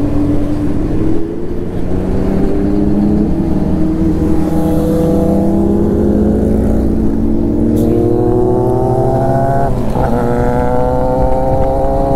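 Kawasaki Z900's inline-four engine pulling under acceleration, its pitch climbing slowly, with a gear change about ten seconds in, then climbing again over steady wind rush.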